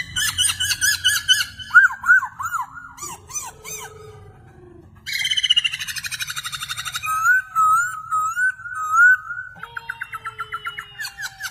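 A parrot chirping and whistling in a varied string of calls, with a fast rattling trill about halfway through, then a run of repeated looping whistles.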